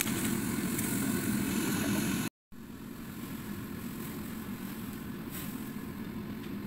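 Steady rumble of water at a hard boil in a wok, with a bundle of wheat noodles cooking in it. The sound breaks off for a moment about two seconds in and comes back quieter.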